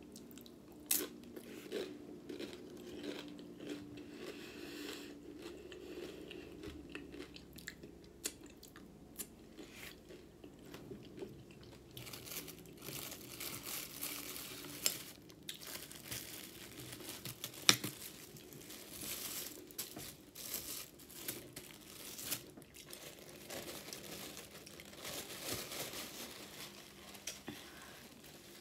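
Chewing and crunching of loaded nachos: irregular crisp bites of tortilla chips and wet chewing. A paper napkin rustles as it is wiped across the mouth.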